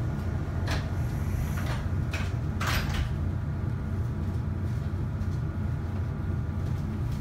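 Pneumatic sliding passenger doors of a 415-series electric train closing: a few short knocks and a rush of air between about one and three seconds in, over the train's steady low hum while stopped.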